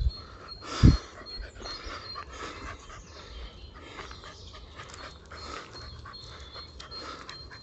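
Dog whimpering, with a loud low thump about a second in.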